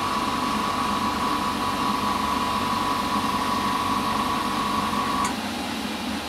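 Harder & Steenbeck Infinity CR Plus airbrush spraying paint: a steady hiss of compressed air with a thin whistle, which stops suddenly about five seconds in.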